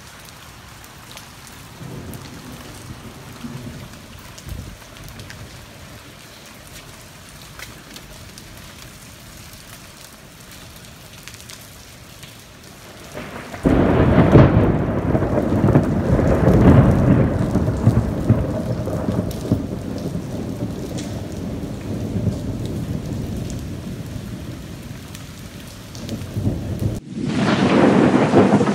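Steady rain falling. About halfway through, a loud peal of thunder breaks in suddenly and rolls on for more than ten seconds. Another loud clap of thunder begins near the end.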